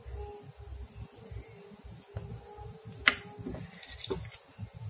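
Quiet knife work on a hard-boiled egg: soft handling sounds and one sharp knock about three seconds in as the knife meets the plate. Under it a cricket chirps in a steady, rapid, even pulse.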